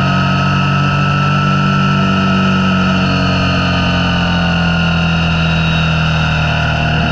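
Motorcycle engine running at a steady cruise, its pitch easing slowly down, over wind and road noise.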